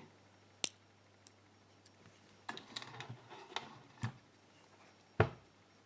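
Small metal lock parts being handled as driver pins are taken out of a DOM euro-cylinder's pin chambers: a sharp click, a brief light rattle about halfway through, another click, and a duller knock near the end.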